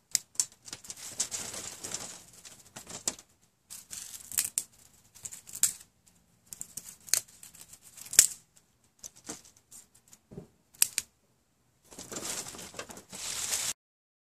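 Dry kindling twigs being cut to length: irregular sharp snaps and clicks between stretches of rustling twigs and dry leaves, stopping abruptly near the end.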